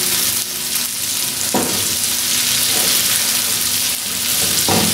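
Beef mince sizzling in a frying pan as it is stirred and turned with a wooden spatula and a slotted spoon, with a steady hiss and two utensil knocks, one about a second and a half in and one near the end. The cooking water has boiled off, and the mince is beginning to brown in its oil.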